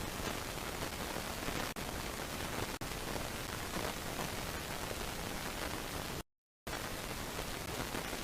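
Steady even hiss from a nest camera's audio feed. It dips twice for an instant and cuts out completely for about half a second near the end.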